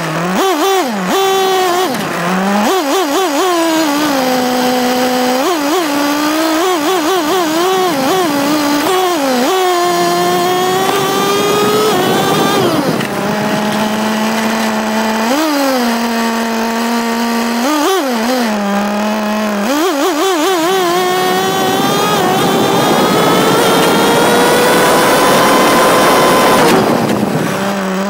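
Small two-stroke nitro (glow-fuel) engine of an RC car, heard close up from a camera mounted on the chassis. It is revved up and down with quick throttle blips and settles to a steady low idle in places. Near the end it climbs in a long rising full-throttle run for several seconds, with road and wind rush building, before it drops off.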